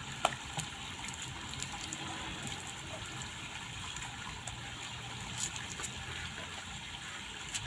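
Water splashing as a soapy dog is bathed: water poured from a plastic dipper over its back and hands scrubbing its wet, lathered fur, over a steady rush of water noise with a few light knocks.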